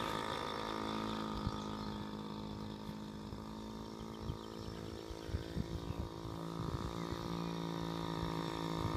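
Small engine of a child's Yamaha mini dirt bike running at a steady pace, fading as the bike rides away, then growing louder again near the end as it comes back.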